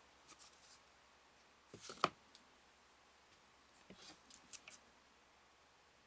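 A few short clicks and rustles of scissors and corrugated cardboard being handled, in two small clusters about two and four seconds in, the sharpest click near two seconds.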